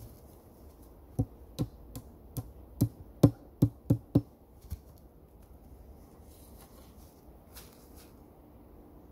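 Hatchet chopping at a log: about ten sharp blows, coming a little faster as they go, starting about a second in and stopping about halfway through.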